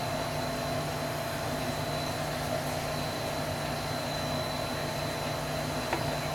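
Steady room hum and hiss with a faint high whine, and a small click near the end.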